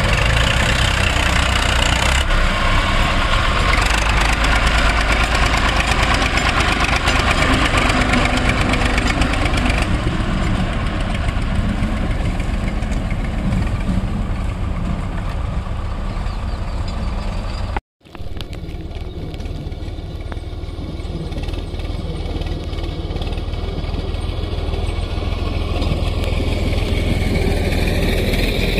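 Heavy diesel engine running steadily with a low throb, from an HMT tractor working with a loaded sand trolley and a JCB backhoe loader. The sound cuts out for an instant about 18 s in, then the engine runs on, growing a little louder near the end.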